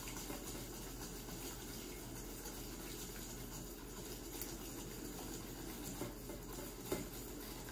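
Wire whisk stirring a thick mixture of brown sugar and melted butter in a stainless steel bowl: faint, steady soft scraping, with a couple of light clicks near the end.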